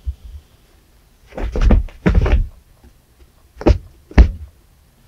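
Cat paws thumping on a carpeted floor during laser-pointer play: a cluster of dull thumps and scuffling for about a second, then two sharp knocks about half a second apart as the paws slap down.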